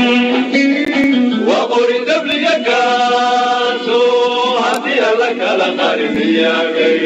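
Music: a song with singing or chanting voices holding long notes, over instrumental accompaniment.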